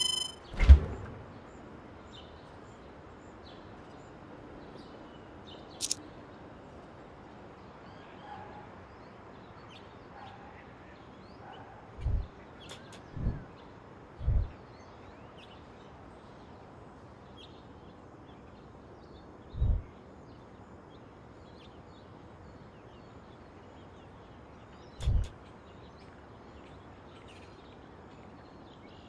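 Outdoor ambience: a steady background hiss with faint bird chirps, broken now and then by short, low thumps and a single sharp click.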